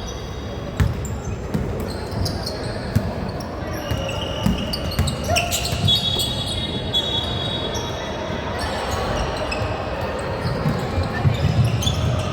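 Basketball game in a gym: the ball bounces on the hardwood court with repeated thumps, short high squeaks sound now and then, and players' voices echo in the hall.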